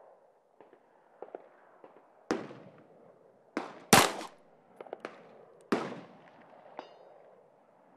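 Colt Competition 9mm 1911 pistol firing slow aimed shots: four sharp reports about one to two seconds apart, the loudest about four seconds in, with fainter knocks between them.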